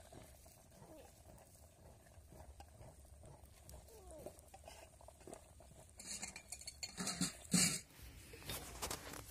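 Faint clinks of steel plates and a few faint falling calls in the background, then loud rustling and knocks of the phone being handled close to the microphone, a finger over it, for the last three seconds.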